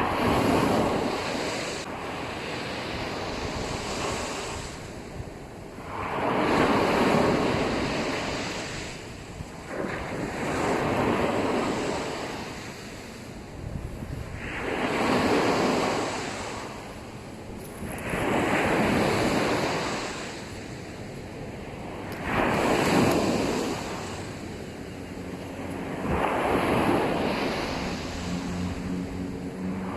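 Sea waves breaking and washing up on a sandy beach, a surge of surf about every four seconds.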